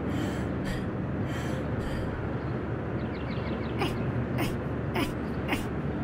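Steady rushing outdoor background noise, joined from about four seconds in by a cartoon grub's short, rhythmic exertion sounds, roughly two a second, as it curls up in crunches.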